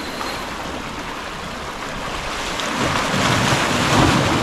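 Wind buffeting the microphone over sea waves washing against the shore: a steady rushing that swells about three seconds in.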